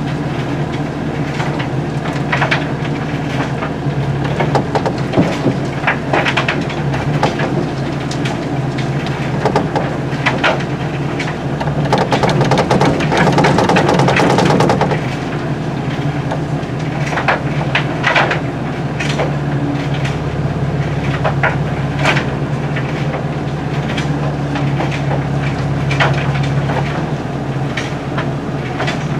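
Excavator engine running steadily from inside the cab while ore and rocks clatter irregularly into a steel hopper and rattle through a turning trommel scrubber. A louder stretch comes a little before the middle.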